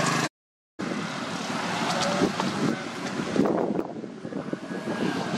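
Wind buffeting the microphone outdoors, a steady rushing noise with small rustles, broken by a half-second gap of total silence shortly after it starts.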